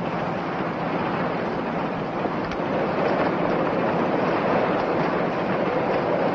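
Steady rushing noise of a boat under way: water along the hull and wind across the open deck.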